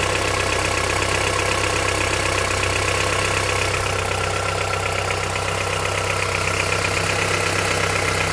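2008 Honda CR-V's cold 2.4-litre four-cylinder petrol engine idling in Drive against the brakes, with a fast, light knock coming from the right-hand side of the engine. The owner has lived with this knock, worst when cold, for about ten years without anyone finding its cause.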